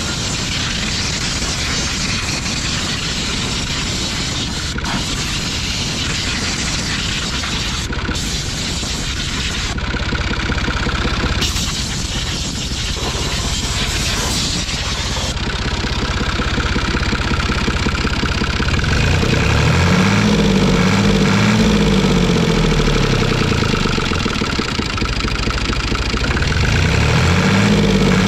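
Fiat 480 tractor's three-cylinder diesel engine running rough while air is bled from its fuel system at the loosened injector lines. In the second half its speed rises and drops back, then rises again near the end.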